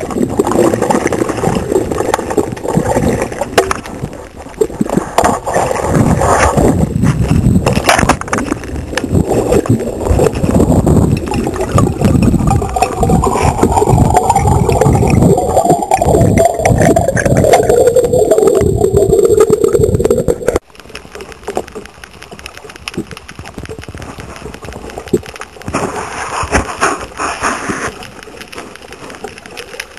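Water sloshing and gurgling, loud and crackly. It cuts off abruptly about two-thirds of the way through, leaving a much quieter stretch of faint water noise.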